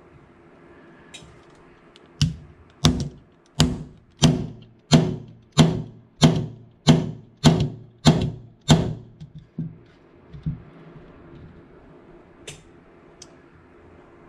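Small brass hammer striking a pin punch to drive a tight drift pin out of a Steyr AUG receiver: about eleven sharp, ringing hits, roughly three every two seconds, followed by a few lighter taps. The pin is starting to come through the far side.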